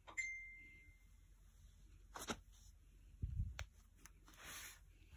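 Faint handling noises: a click with a short ringing tone after it, then a few more clicks, a low thump and a soft rustle.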